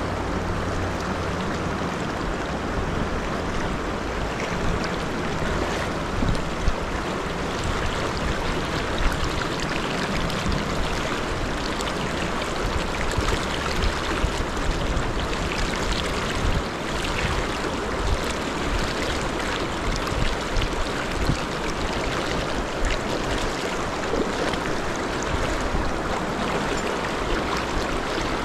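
River rapids rushing steadily, an even wash of fast-flowing water.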